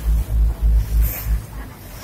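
Wind buffeting the microphone on a moving river boat, loud irregular low gusts for about the first second and a half, then easing to a steadier low rumble of the boat and water.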